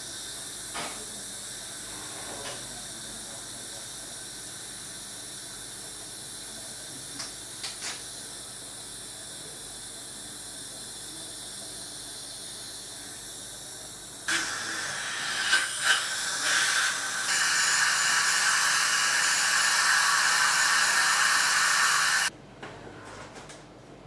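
Dental suction hissing steadily. About fourteen seconds in a louder, sharper hiss joins it, and it cuts off suddenly about eight seconds later.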